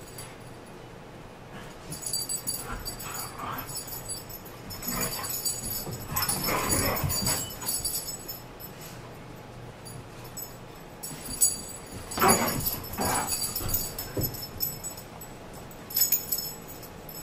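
Dogs playing together: several irregular bouts of whining and play noises with a high-pitched jingling, the loudest bouts near the middle and just after, and a short final burst near the end.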